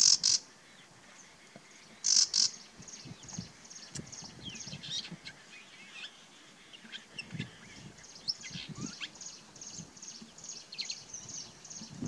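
Bay-backed shrike singing: two loud harsh notes about two seconds apart, then a long rambling run of quick, thin, varied high notes. The uploader hears the song as mimicry of a warbler.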